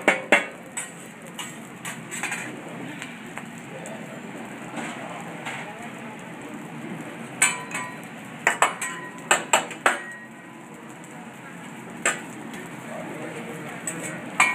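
Sharp metal-on-metal clanks from a hibachi chef's spatula and dome lid striking the steel griddle. There are two near the start, a quick run of about five in the middle, and one more near the end, over low restaurant chatter.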